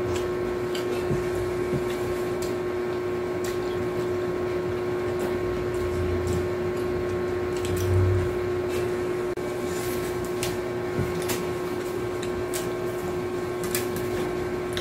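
A steady electrical or motor hum from an unseen appliance, with scattered crisp crunches and clicks of people eating lettuce-wrapped tacos and a couple of low dull thuds about six and eight seconds in.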